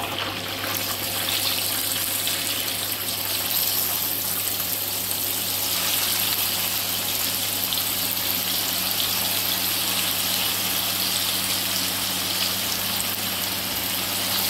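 Chicken pieces deep-frying in hot oil, a steady sizzle with a low hum underneath.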